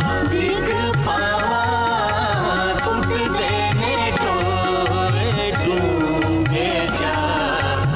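Instrumental music of a Punjabi devotional song: a gliding melodic lead line over a steady hand-drum rhythm.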